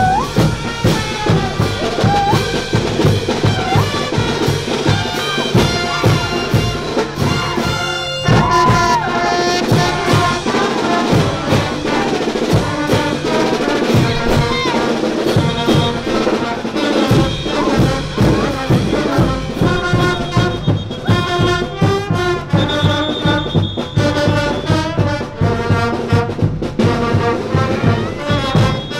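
A brass band of trumpets and trombones, with drums, playing caporales dance music.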